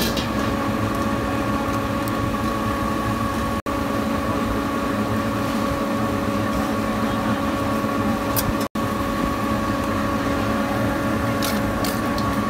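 Steady hum and rush of a street-food stall's kitchen equipment, a gas wok burner and ventilation, with a few constant tones in it. The sound cuts out briefly twice, and a few light clicks come near the end.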